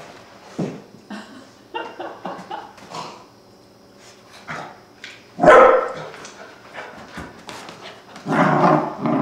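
Small fluffy dog barking and growling as it plays wildly in post-bath excitement, with short scattered sounds throughout, one sharp bark about halfway through and a longer, louder growl near the end.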